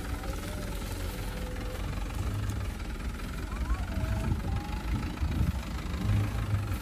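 Diesel engine of a Mitsubishi light truck running at low revs as the truck crawls over rough ground, a steady low rumble. It swells in a few louder surges about four to six seconds in.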